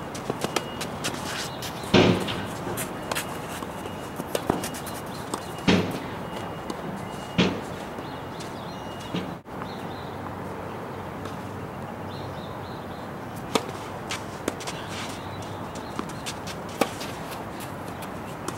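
Tennis racquets striking the ball and the ball bouncing on a hard court: sharp pops, the loudest about two, six and seven and a half seconds in, then a few fainter single taps later on.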